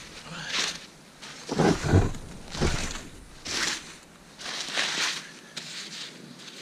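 Gloved hands digging and scooping snow: a run of crunching, swishing scoops about once a second, with a couple of dull thumps about two seconds in.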